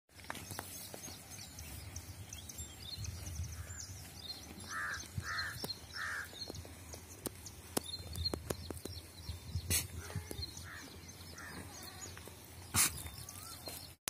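Outdoor flock ambience of sheep and goats, with a few short bleats and birds chirping throughout. Two sharp knocks come in the second half and are the loudest sounds.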